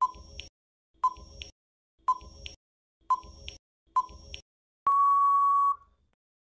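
Quiz countdown timer sound effect: five short beeps one second apart, then one longer steady beep of about a second marking time out.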